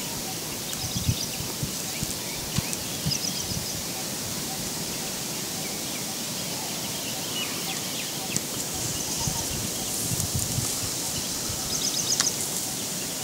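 Birds calling in short, high, repeated chirps several times over a steady outdoor hiss, with rustling and soft thuds of people walking through tall dry grass.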